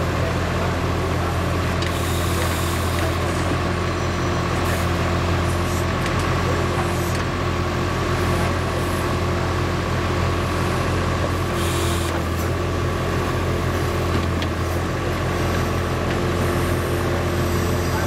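Avant 528 compact loader's diesel engine running steadily under load as it powers the hydraulics of a backhoe attachment digging. It is a low drone with a steady, thin whine above it.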